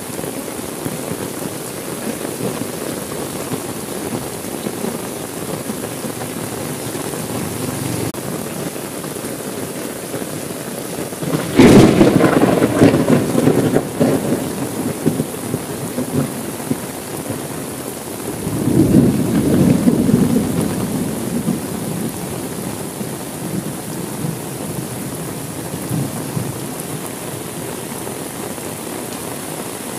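Steady heavy rain, with a sudden loud thunderclap about a third of the way in that rolls off over a few seconds, then a second, softer rumble of thunder a few seconds later.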